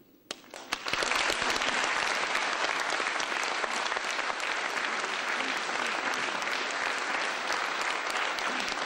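Audience applauding: a few scattered claps, then about a second in the full applause starts and holds steady.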